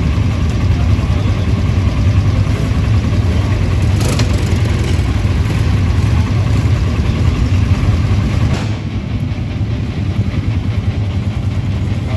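Quad bike engines idling and running with a steady low rumble; the sound changes about two-thirds of the way through.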